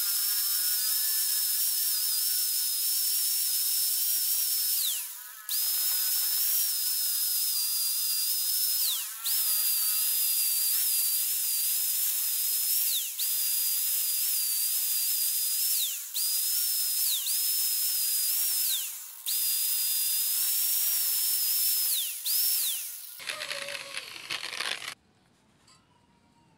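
Electric angle grinder with an abrasive disc sanding and shaping a wooden saw handle: a steady high whine over a grinding hiss. The sound breaks off about every three seconds, the whine dropping in pitch just before each break. It stops about a second and a half before the end.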